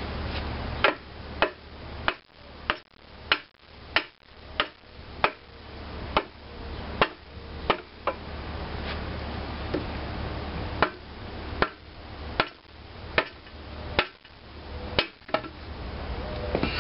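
About twenty sharp hammer blows on metal parts of an antique 1920 International Harvester Type M engine, struck at an uneven pace of roughly one or two a second, each with a short ring. This is typical of knocking loose a crankcase side cover during teardown.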